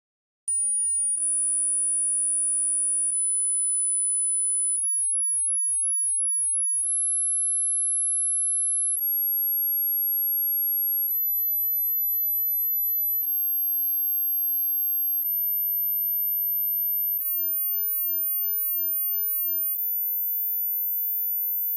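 A pure sine-wave test tone from a software test oscillator, stepping upward in pitch about every two seconds to 14,000 hertz at a steady level. This is a hearing-test sweep toward the upper limit of human hearing.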